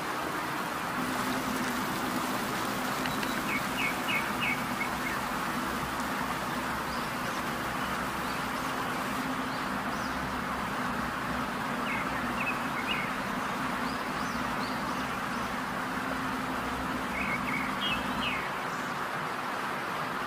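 Steady hiss with a low hum that stops near the end, and three short bursts of bird chirps.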